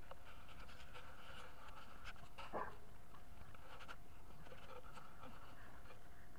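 A dog panting while walking on a leash, with a few light clicks and a brief falling whine-like sound about two and a half seconds in.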